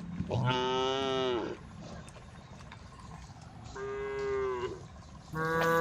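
Cows mooing: three long calls, the second quieter, each falling in pitch as it ends, the last one starting near the end.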